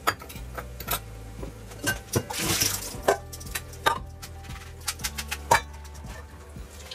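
Metal spoon and small stainless-steel bowl clinking against each other and the glass plate: a scatter of sharp clinks and taps, with a brief rushing hiss about two and a half seconds in.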